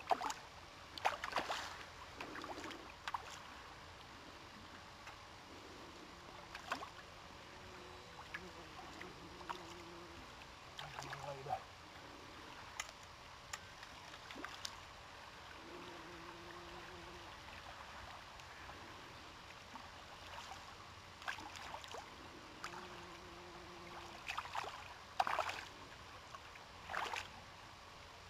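Steady wash of flowing creek water, with scattered short knocks and rustles a second or two in and again near the end.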